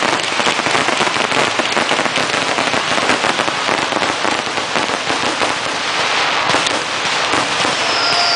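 Fireworks going off in a dense, continuous crackle of many small pops in quick succession. Near the end a high whistle starts and falls slightly in pitch.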